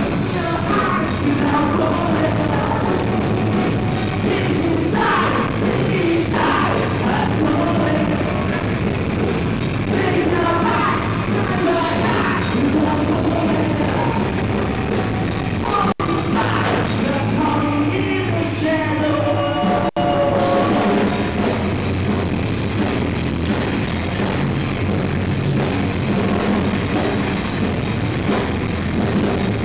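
Live rock band playing: a singer over electric guitar and drums, recorded from the audience. The sound cuts out for an instant twice, around the middle.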